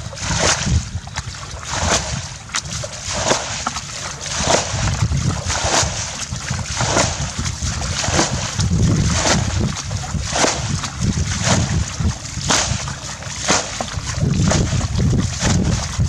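Muddy ditch water bailed out with a plastic bucket: a steady run of splashes, more than one a second, as each bucketful is scooped and flung out. A low rumble of wind on the microphone runs underneath.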